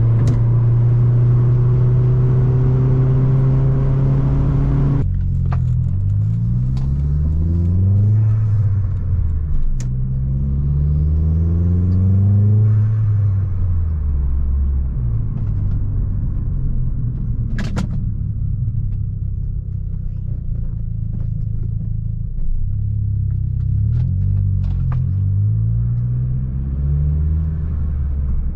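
Opel Astra G Bertone's 2.0 turbo four-cylinder engine running under way, first at a steady pitch, then revs climbing and falling several times as the car accelerates and shifts. A single sharp click comes about two-thirds of the way through.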